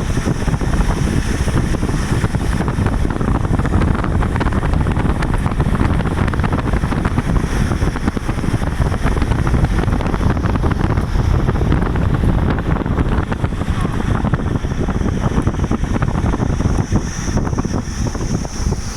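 Steady wind buffeting the microphone over the low rumble of a vehicle driving along a road.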